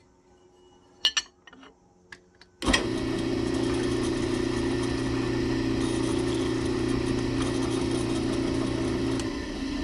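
A few clicks and knocks of handling, then a drill press motor switches on about two and a half seconds in and runs steadily with a steady hum while a chamfer bit cuts the edge of the hole in steel. Near the end the motor sound drops as it is switched off and winds down.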